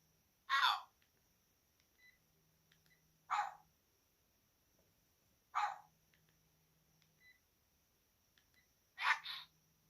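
A Sharp GX1 mobile phone playing a looped ringtone or alert through its small speaker. Short, harsh, bark-like bursts repeat every two to three seconds, the last one doubled, with faint beeps and a low hum between them.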